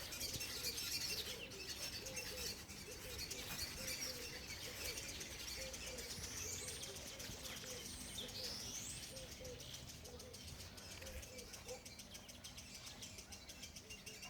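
Garden birds chirping faintly, with two rising whistled calls around the middle.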